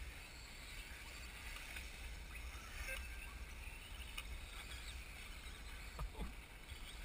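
Wind buffeting the microphone in a low, uneven rumble, over a faint high whine of brushless electric 1/10 RC buggies racing on the track. Two soft knocks about six seconds in.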